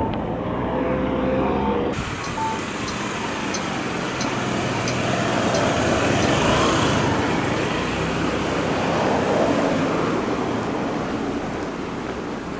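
Road traffic on a town street, a steady rush that swells twice as cars pass. Faint regular ticks run through the first half. In the first two seconds a muffled hum with a few steady tones cuts off abruptly.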